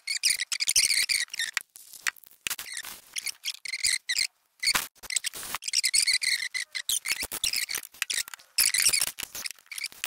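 Gloved hands rubbing small carburetor parts in a blue shop towel and handling the carburetor pieces: scratchy rustling and rubbing in short bursts, with small clicks and knocks and a couple of brief pauses.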